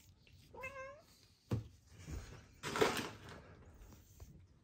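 A domestic cat gives one short meow, its pitch rising and falling. A sharp knock follows about a second later, then a louder burst of rustling, the loudest sound here.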